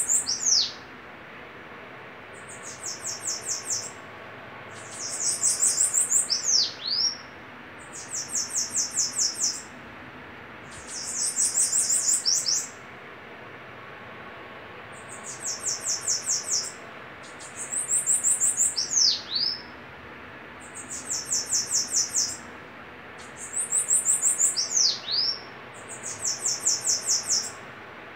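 Two caged bananaquits (sibite) singing in a duel: high, rapid trilled phrases about a second long, one every two to three seconds, some louder and some fainter as the birds answer each other, several ending in a sharp downward-sweeping note.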